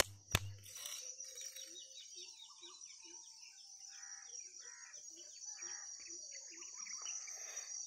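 Birds calling in short, repeated notes over a steady high-pitched insect drone, with one sharp click just after the start.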